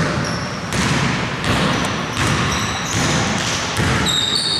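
A basketball being dribbled on a wooden court, bouncing about once every three quarters of a second. Sneakers squeak on the floor, most plainly near the end.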